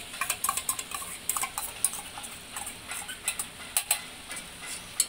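Metal spoon scraping and tapping against a steel bowl, scooping thick masala paste out into a pressure cooker, with many sharp, irregular clicks of metal on metal. The gravy in the cooker sizzles faintly underneath.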